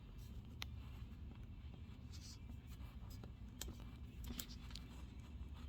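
Faint scattered light clicks and a couple of short scratchy rustles over a low steady hum.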